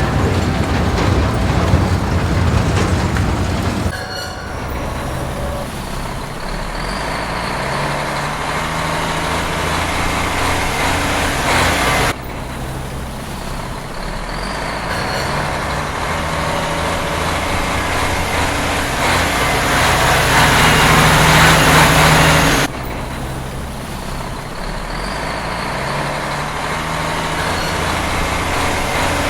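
Heavy truck engine running and slowly building up, in sections that cut off abruptly and restart about every eight to ten seconds, each sounding much like the last.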